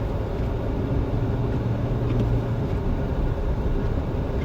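Jeep Wrangler driving through snow, heard from inside the cabin: a steady low engine and road rumble with a hum that eases about halfway through.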